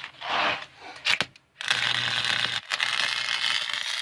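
Harbor Freight wire-feed welder arc crackling steadily, turned up to a high setting to get penetration on thick steel; the arc strikes about one and a half seconds in and breaks off for an instant near three seconds. Before it, a brief hiss and a couple of clicks.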